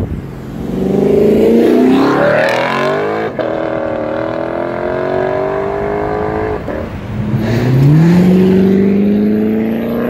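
A car engine accelerating hard up through the gears. The pitch climbs steadily in each gear, with upshifts about three and about seven seconds in.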